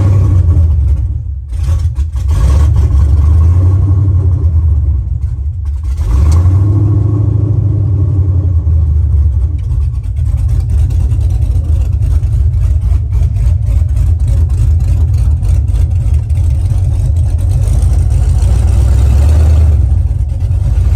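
LS-swapped 1978 Chevy pickup's 4.8-litre LS V8, with an aftermarket Texas Speed cam and headers, running loud just after start-up, heard from inside the cab. Its sound dips briefly twice in the first six seconds, then runs on steadily.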